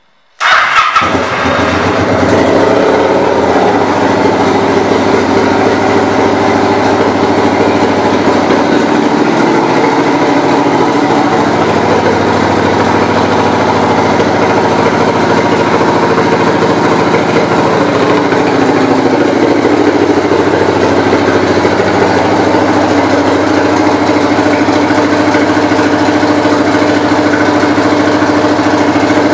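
A 2009 Kawasaki Vulcan 900 Classic LT's 903 cc V-twin engine starts suddenly about half a second in, then idles steadily with a few slight rises and falls in speed.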